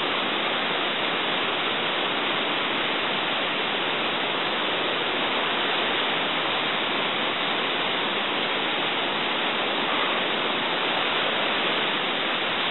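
Steady, even rushing noise that holds the same level throughout, with no other sound standing out.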